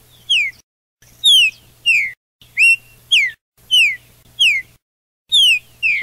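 A songbird singing loud, clear whistled notes, each sliding down in pitch, mostly in quick pairs, over a faint low hum. The sound cuts in and out abruptly between phrases.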